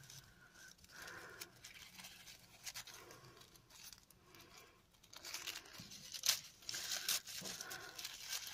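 Tissue paper crinkling and rustling as a wrapped bundle is opened by hand. The sound is faint at first, then louder and sharper from about six seconds in, with a few crisp tearing crackles.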